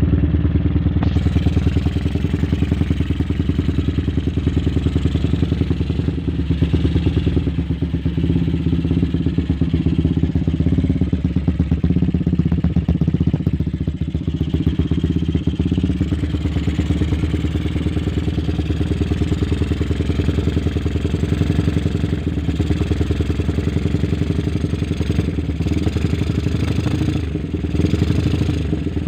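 Stroked-up Honda Tiger single-cylinder motorcycle engine (Herex stroke-up crank, 74 mm piston, standard valves) running steadily at a low, even speed.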